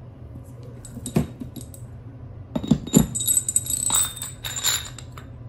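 Metal tools and uniball press-tool parts being handled on a workbench: a knock about a second in, a few clanks near the middle, then a metallic jingling ring for about two seconds.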